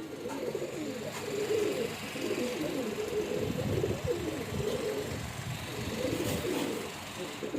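Domestic tumbler pigeons cooing, several calls overlapping without pause.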